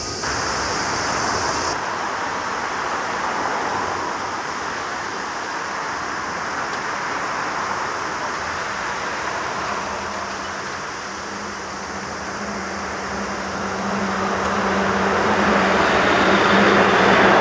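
Airbus A330 twin-engine airliner at take-off thrust: a steady jet roar, joined about ten seconds in by a low drone, building louder near the end as the aircraft climbs toward the listener.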